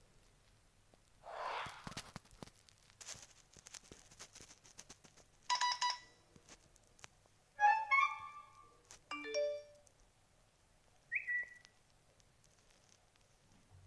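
Smartphone ringtone and alert tones playing in short separate snippets with pauses between: a brief chime, then a quick run of notes, then a short rising chirp. Faint clicks are heard between the tones.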